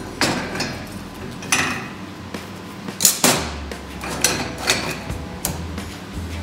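Steel square tubing and clamp parts knocking and clanking against a steel welding table as they are handled. There are about half a dozen sharp metal knocks, the loudest a pair about three seconds in.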